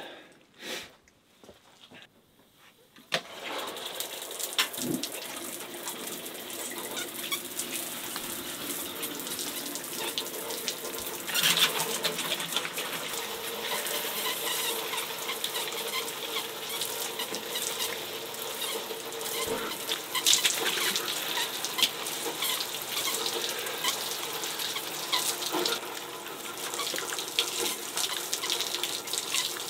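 Water spraying from a handheld shower head onto a person showering under it, starting suddenly about three seconds in and then running steadily, with splashes on top.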